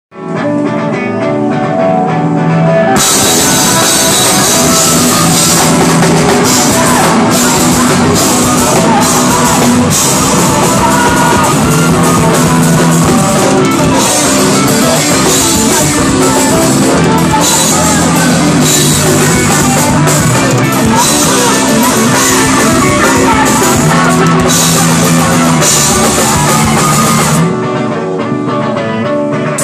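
Live post-hardcore rock band playing loud: electric guitars alone for about the first three seconds, then the drum kit with crashing cymbals comes in with the full band, dropping back to mostly guitar near the end.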